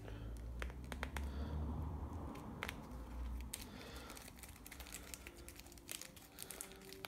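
Small clicks, taps and light crinkling from hands working a plastic action figure and pulling protective plastic bits off it, with a low rumble during the first three seconds or so.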